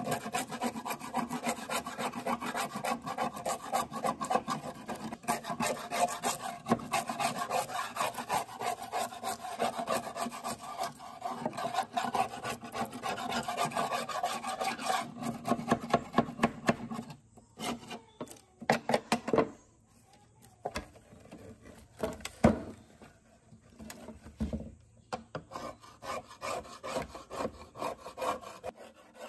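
Flat steel scraper blade scraping rust and flaking paint off a rusted metal casing in rapid, dense strokes. About seventeen seconds in the strokes thin out into short separate scrapes with gaps between, then pick up again near the end.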